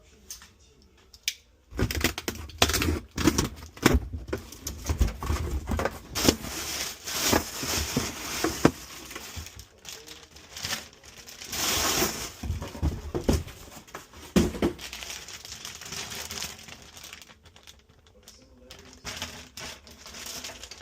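Irregular crinkling and tearing of a thin material being handled, with scattered sharp clicks and knocks. It starts about two seconds in, is busiest in the first half and again around the middle, then thins out.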